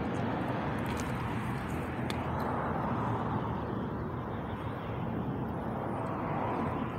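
Steady vehicle and traffic noise heard from inside a car, swelling about three seconds in and again near the end.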